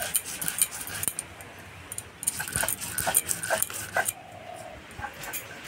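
Mustard seeds, poppy seeds and green chillies being ground on a flat stone slab with a stone roller: gritty scraping strokes of stone on stone, in two spells with a short lull between. A brief high whine is heard about three-quarters of the way in.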